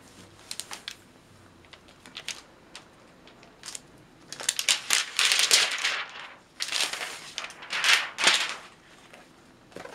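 Plastic packaging wrap rustling and crinkling as an ASUS Zenbook laptop is unwrapped and handled, in three loud bursts in the second half. A few light clicks and taps come before them.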